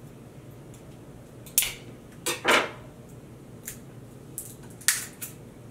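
Glass hot-sauce bottle being handled and opened: about six short sharp clicks and clinks, with a brief scrape about two and a half seconds in.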